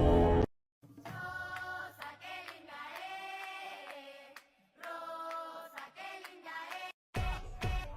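Soft wordless singing, choir-like voices in a few held phrases separated by short gaps. A louder music track cuts in about seven seconds in.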